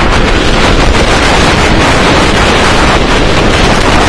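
Loud, steady wind rushing over the microphone of a front-row rider on the VelociCoaster roller coaster as the train runs at full speed.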